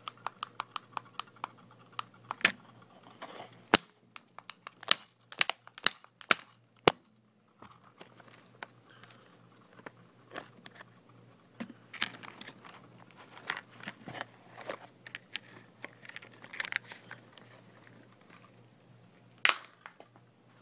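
Clicks, knocks and rustling as a cheap toy RC car is handled, over a steady low hum. A quick even run of clicks in the first two seconds is followed by scattered sharp clicks, with a loud one near the end.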